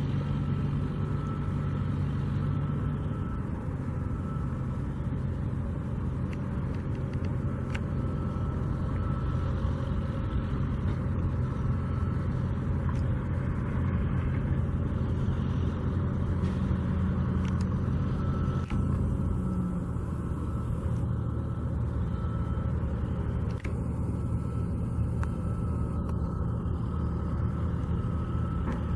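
Steady low engine rumble from idling vehicles or machinery, its pitch shifting slightly a few times, with a faint steady whine above it.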